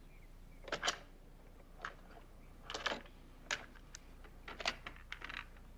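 Plastic clicks and rattles of a cassette tape recorder's keys being pressed and a cassette case being handled: a string of irregular, uneven clicks.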